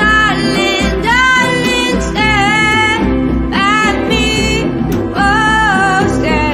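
Female vocals singing long held notes that slide up into pitch, over a strummed acoustic guitar and grand piano.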